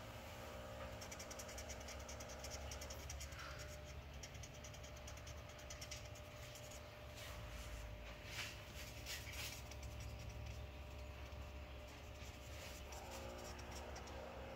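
Handling noise from a phone microphone pressed against a person's body: a low rumble with faint scratching and clicking, and a faint steady hum behind it.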